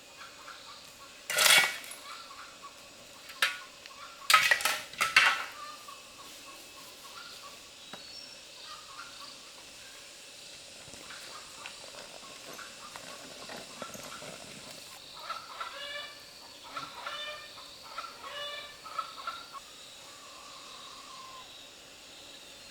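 Domestic poultry calling: a run of short, pitched calls near the middle of the stretch. Earlier come a few loud, sharp clattering knocks.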